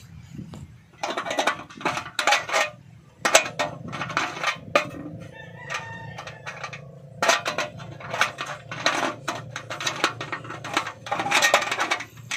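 Irregular metallic clinks and knocks in quick clusters, as of handling hard parts and fittings around a small boat engine.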